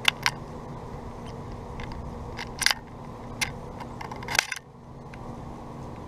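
Sharp clicks and taps of a finch pecking seed in a clear plastic window feeder. They come as single taps and short clusters: two at the start, a few around the middle and a loud cluster about four seconds in.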